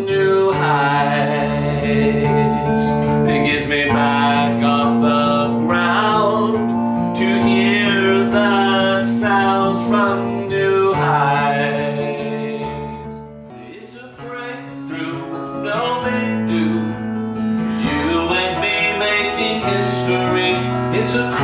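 Acoustic guitar music, strummed and picked, with some singing. It dips in loudness for a moment a little past the middle, then picks up again.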